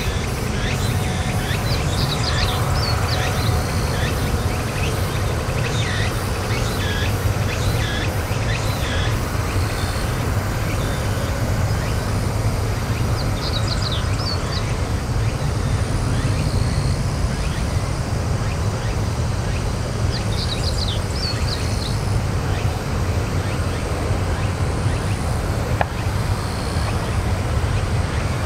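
Boeing 767-300 jet airliner on final approach, heard as a steady low rumble. Songbirds chirp in short bursts several times over it.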